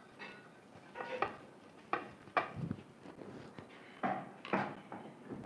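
Half an onion on a fork rubbed over a lightly oiled dosa tawa to season it so the dosa won't stick, in a few short scrapes, with the fork clinking on the metal.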